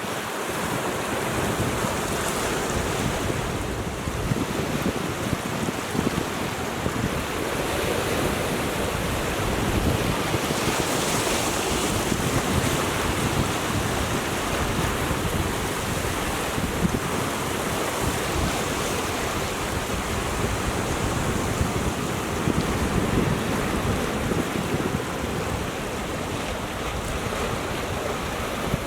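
Pacific surf breaking and washing over a rocky shoreline, a continuous hiss and rush that swells a little a couple of times. Wind gusts buffet the microphone, adding a low rumble.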